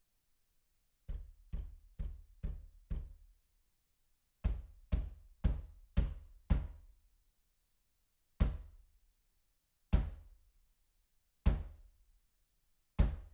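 Knocking on a door. A quick run of five knocks comes about a second in, then a louder run of five after a short pause, then single knocks about every second and a half.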